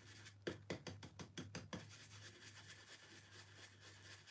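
Small stencil brush dabbing chalk paint through a silkscreen stencil onto a wooden stool top: a quick run of faint taps in the first couple of seconds, then soft brushing, all quiet.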